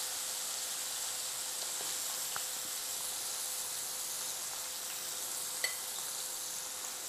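Floured squid rings frying in hot oil, a steady sizzle. A single light clink of a fork against a glass bowl comes about five and a half seconds in.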